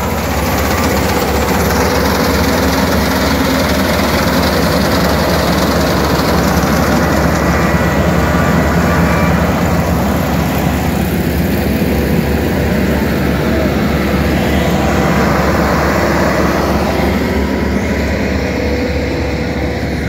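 Kubota KAR-90 tracked combine harvester running steadily under load while it cuts and threshes standing paddy: engine and machinery noise close by.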